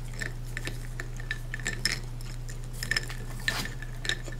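Ice cubes clinking against a drinking glass as an iced drink is stirred with a straw: irregular light clinks with a short ring, a few louder ones in the second half.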